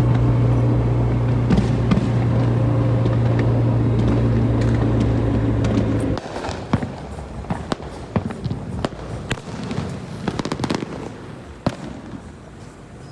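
A loud steady low hum that stops abruptly about six seconds in, with New Year's Eve firecrackers and fireworks popping and crackling throughout. After the hum stops, the pops stand out as many scattered sharp cracks.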